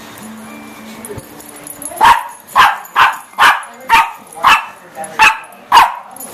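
A dog barking eight times in quick succession, about two barks a second, in excited play while chasing a laser dot. The barks start about two seconds in.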